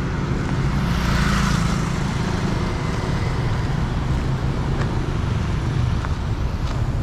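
Street traffic: a steady low engine rumble, with a vehicle passing about a second in.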